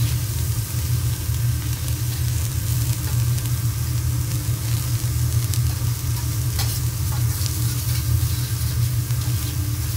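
Vegetables sizzling on a hot teppanyaki steel griddle, an even frying hiss with occasional light clicks, over a steady low hum.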